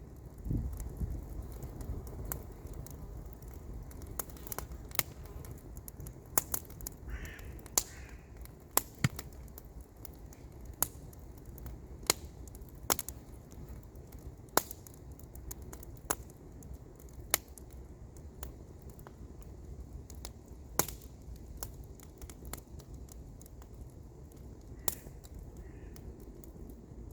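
Wood campfire crackling, with sharp irregular pops about once a second over a steady low rumble. A bird calls twice about seven seconds in and twice more near the end.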